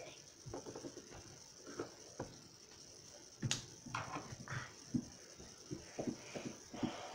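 Faint handling noises of toys being played with on a wooden table: scattered soft taps, knocks and rustles, busier in the second half, with one sharper click about three and a half seconds in.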